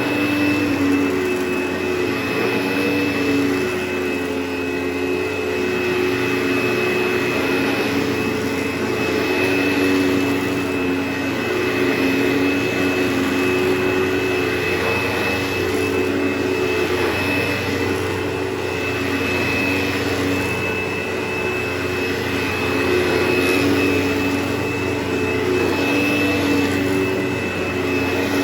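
Carpet-cleaning vacuum running steadily, a continuous whine with a few held tones that waver slightly in strength.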